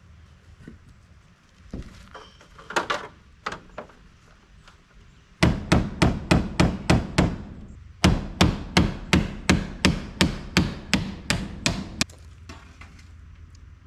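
Hammer driving nails into wood: a few scattered knocks, then two runs of rapid, evenly spaced blows at about four a second, with a brief pause between them.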